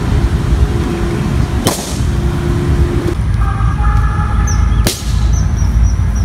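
Two sharp bangs of balloons bursting, about a second and a half in and again about five seconds in, over music with a heavy bass.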